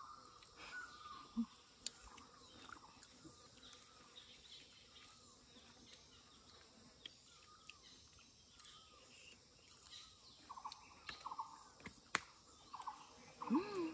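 Faint bird calls and chirps over a quiet outdoor background, with a couple of sharp clicks. In the last few seconds comes a quick run of short, repeated calls.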